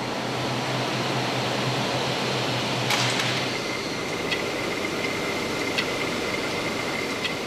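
Hydroelectric power-station generator and turbine machinery running: a steady mechanical rush with a low hum in the first half, then a steady high whine that starts with a click about three seconds in, plus a few faint ticks.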